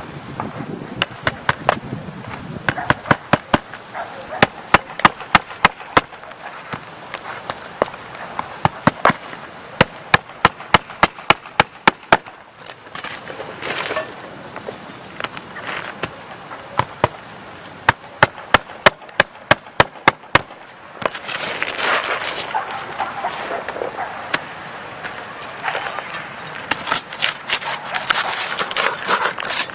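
Hammer driving roofing nails into shingles: runs of sharp strikes, a few a second, which stop about two-thirds of the way through. Then scraping and rustling of shingles.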